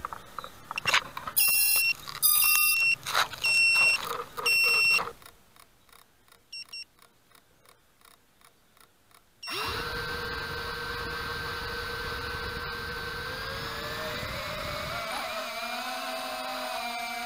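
A series of short, high electronic beeps, then a pause, then about ten seconds in the Walkera Rodeo 110 quadcopter's small electric motors spin up suddenly to a steady whine. Near the end the whine rises in pitch as the throttle is raised.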